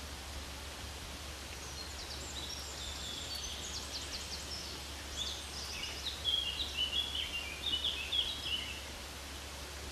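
Birds chirping, with a run of short high notes and quick trills from about a second and a half in that grows louder past the middle and stops near the end. Under it is a steady hiss.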